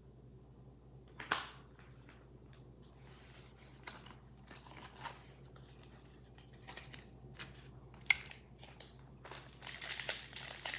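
Handling noises from opening Pokémon trading card packs: a few sharp taps and clicks, then foil booster-pack wrapper crinkling and tearing near the end.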